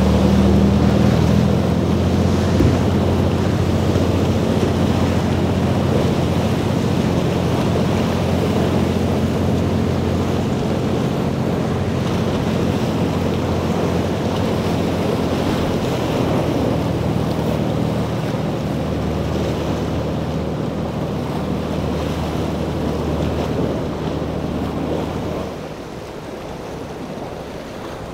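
Motorboat engine running with a steady low drone, over crashing surf and wind buffeting the microphone. Near the end the drone stops and the level falls to a quieter wash of water and wind.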